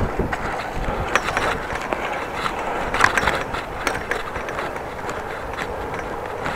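Bicycle being ridden: steady road noise with irregular mechanical clicks and rattles from the bike.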